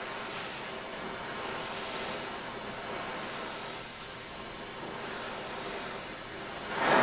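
Oxy-acetylene torch with a cutting tip, its flame hissing steadily while it heats a steel bar and silver solder for brazing. A brief, louder burst comes right at the end.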